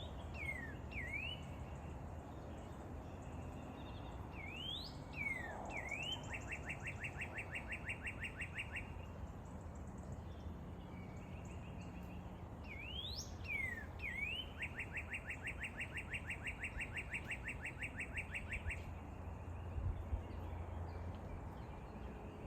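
Red-wattled lapwing calling: sharp rising and falling call notes, then a fast run of about seven or eight notes a second lasting some three seconds, given twice. A brief low thump near the end.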